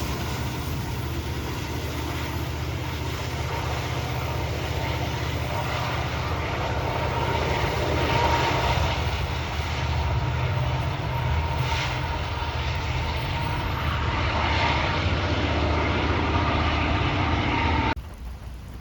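Freight train rolling past with a loud, steady low rumble and a thin high tone over it, cutting off abruptly near the end.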